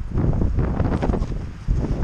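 Wind buffeting the microphone: a loud low rumble that surges unevenly.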